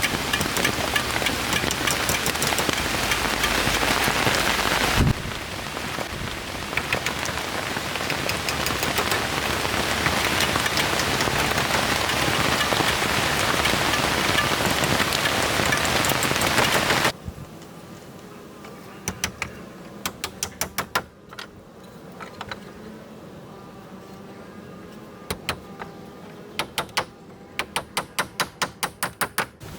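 Rain falling steadily, with an abrupt shift in its sound about five seconds in. About seventeen seconds in, the rain cuts off suddenly. Quick runs of sharp knocks follow, several a second.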